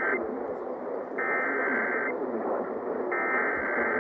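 Emergency Alert System header data bursts received over AM radio: the tail of one burst, then two more, each about a second long with about a second between them, over a steady hiss of radio static.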